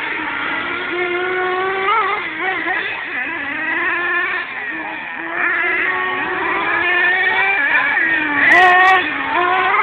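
Several radio-controlled race cars running at once, their small motors whining and sliding up and down in pitch as they throttle up and back off, with two short clicks near the end.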